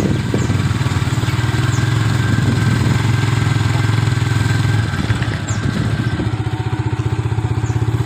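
Small motorcycle engine running steadily with an even rapid pulse, easing a little about five seconds in.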